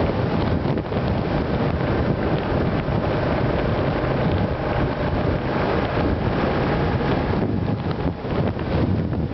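Heavy wind rushing over a camera microphone mounted above a motorcycle's windscreen at road speed, with the Suzuki Gladius 400's V-twin engine running steadily underneath.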